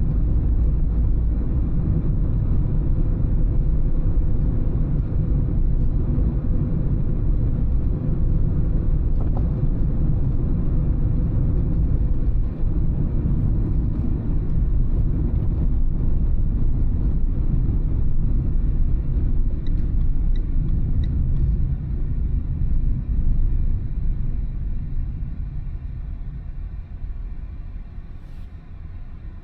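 A car's engine and tyre rumble, heard from inside the cabin while driving, steady and low. It dies down over the last few seconds as the car slows.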